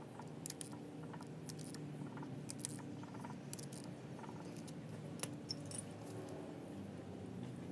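Light metallic clinks and taps of steel parts and hand tools being handled at a coupling drive gear, scattered irregularly, with a few sharper clicks about five seconds in. A steady low hum runs underneath.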